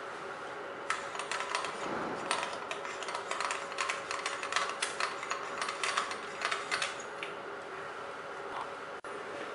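Hands fitting a beam splitter onto a slit lamp and turning its knurled thumb screw: a rapid, irregular run of small mechanical clicks that starts about a second in and stops around seven seconds. A steady hum runs underneath.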